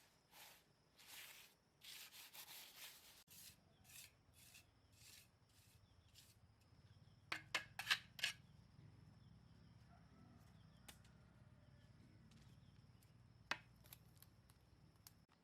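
Faint hand-work sounds: a series of scraping or rubbing strokes, then about halfway a quick run of four or five sharp taps, and one more tap near the end.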